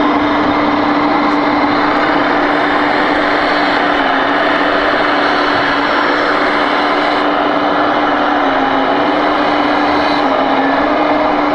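Sound module of a radio-controlled Hitachi Zaxis model excavator playing a diesel engine running steadily while the machine digs, heard as a continuous drone.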